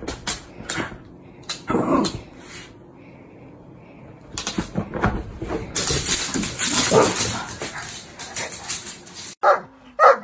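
A small dog scratching and pawing at a quilted sofa throw, with fabric rustling and scraping. Near the end a German Shepherd gives loud, sharp barks.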